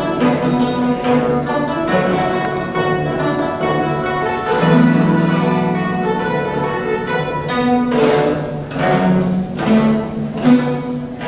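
Guzheng (Chinese zither) being played: fast plucked runs and rapidly repeated notes over ringing low notes, with sweeping strokes across the strings near the end.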